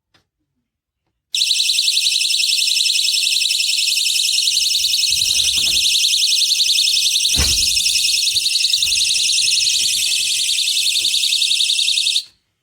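HIIXHC magnetic door/window alarm sounding its siren: a shrill, high-pitched, fast-warbling tone that starts abruptly about a second in and cuts off suddenly near the end. Low knocks from handling run under it, one sharper knock about halfway.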